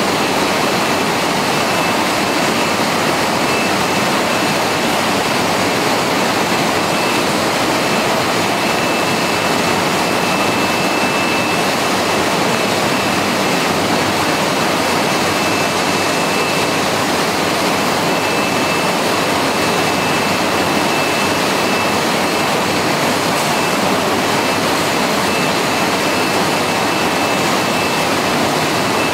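Steady, even rushing noise of poultry-processing line machinery and running water, with a faint steady high-pitched whine on top.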